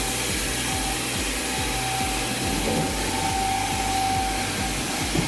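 Wood-processing machinery running with a steady hiss and a held whine partway through, under background music with a steady beat.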